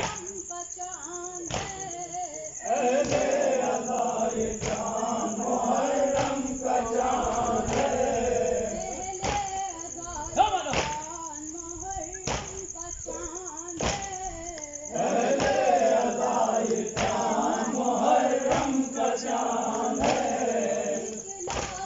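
A group of men chanting a Muharram noha (mourning lament) together in long phrases, rising to full voice a few seconds in and again after a lull in the middle, with thumps at a steady beat roughly once a second.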